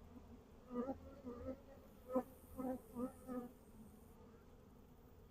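Honeybees buzzing in short passes close to the microphone, several brief buzzes in the first three and a half seconds, over a faint low hum.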